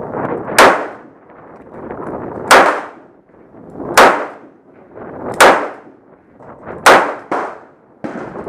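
A Ruger SP101 .357 Magnum snub-nosed revolver fires five single shots, about one and a half seconds apart, each a sharp crack with a brief ringing tail. A fainter crack follows just after the fifth shot.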